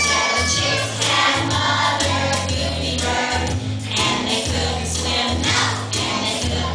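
Music with choir singing.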